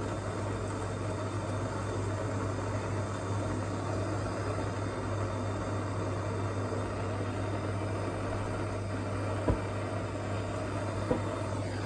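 Gas blow lamp burning with a small flame, a steady rushing noise as it heats a copper elbow joint for soft soldering, then it stops at the very end. A sharp click about nine and a half seconds in, and a lighter one a little later.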